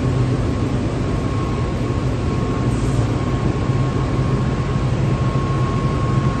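SCM Record 132 CNC machining centre running: a steady machine hum with a thin, constant high whine.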